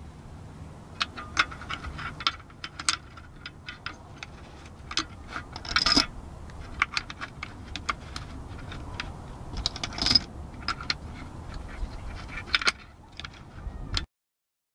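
Brass .303 British cartridges clinking against one another and clicking into place in a Lewis gun's pan drum magazine as it is hand-loaded round by round. The clicks come irregularly, a few louder ones about halfway and two-thirds of the way through, and the sound cuts off abruptly near the end.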